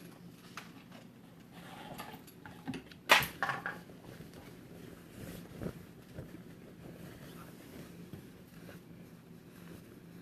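Handling noises: scattered rustles and clicks, with one sharp knock about three seconds in, over a faint steady hum.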